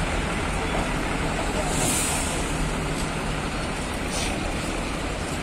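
Intercity coach's diesel engine running steadily as the coach drives slowly up a steel ferry ramp, with a short hiss about two seconds in.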